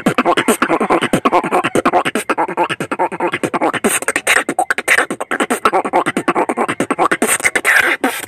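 Solo vocal beatboxing: a fast, unbroken run of sharp mouth-made clicks and pops, mixed with short hummed and pitched vocal sounds.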